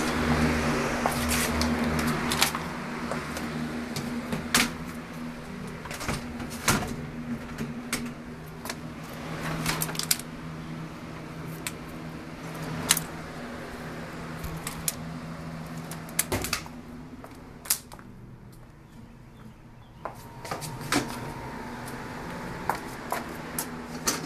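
Kitchen cabinet doors and the handheld phone being handled, making scattered sharp clicks and knocks over a steady low hum. There is a quieter stretch a little past the middle.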